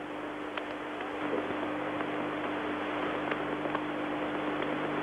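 Steady murmur of a large cricket-stadium crowd, heard through an old television broadcast recording with a constant low hum and a few faint ticks.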